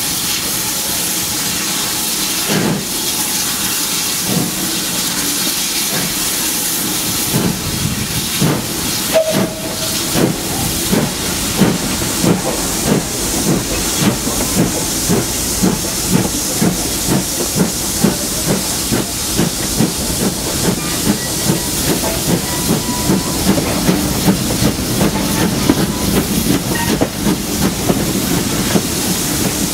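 GWR 5600 class 0-6-2T steam tank locomotive 5643 starting away with its train. A steady hiss of steam comes first; then, about a quarter of the way in, the exhaust beats begin and quicken as it gathers speed.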